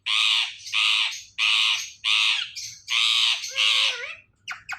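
Ringneck parrot squawking: six loud, harsh screeches in three quick pairs, then a few short sharp chirps near the end.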